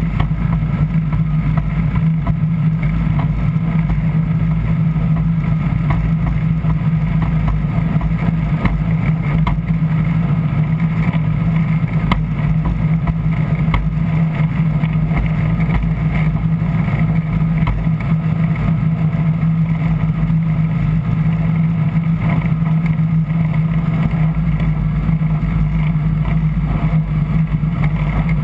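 Light aircraft's propeller engine running steadily at low taxiing power, heard from inside the cockpit: an even, unbroken drone.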